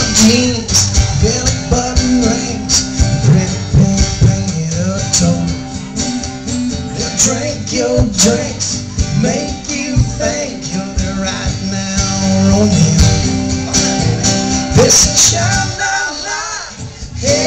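Two acoustic guitars strummed in a live performance, with a man singing over them.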